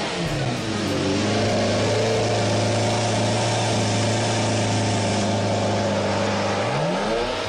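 Lamborghini Aventador's V12 engine dropping back from a rev to a steady idle as the car creeps forward, then revving up near the end.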